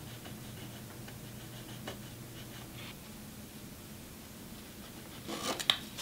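Pencil marking a thin wooden strip against a tape measure, with faint scratching strokes. A little after five seconds, a brief clatter of wooden strips and the tape measure being handled, with one sharp click the loudest.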